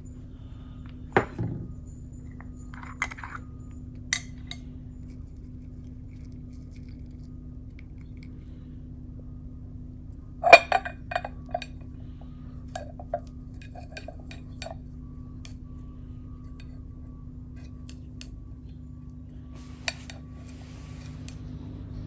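Scattered light clinks and taps of glass and ceramic, from paint jars and mixing dishes being handled while paints are prepared, with a louder cluster of clinks about halfway through.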